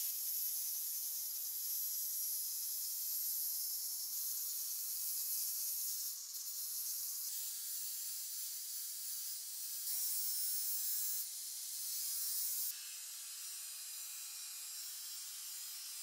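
Angle grinder with an abrasive disc grinding rust off the steel receiver of a Winchester 1895 rifle: a steady high hiss of disc on metal over the motor's whine. The whine changes pitch several times.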